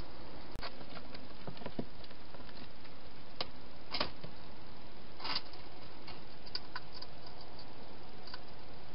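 A hedgehog eating at a bowl inside a plastic feeding box: irregular small crunches and clicks, a few to each second or two, over a steady hiss. There is a brief break in the hiss about half a second in.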